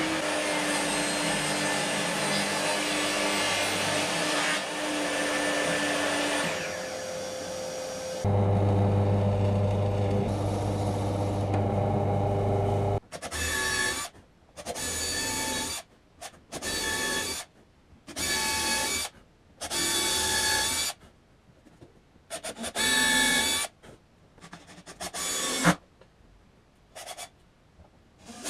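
Power tools running in a workshop. A steady motor sound drops in pitch about six seconds in. A deeper, louder hum follows, then a string of short runs about a second each, switched on and off repeatedly.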